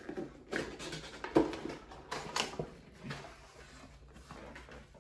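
Cardboard box being opened by hand: a few scattered taps and scrapes with rustling of the packaging, thinning out in the last couple of seconds.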